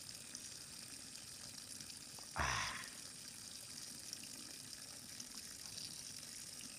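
A brief splash of water about two and a half seconds in, over a faint steady hiss.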